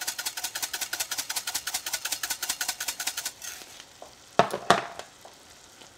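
A utensil stirring a pan of cream sauce, rapid and even at about eight scrapes a second, stopping a little past three seconds in. Then two sharp knocks come about a third of a second apart.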